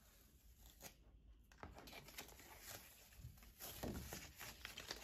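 Heat transfer paper being peeled off a sticky cutting mat: a faint crackling, tearing peel that grows louder about four seconds in.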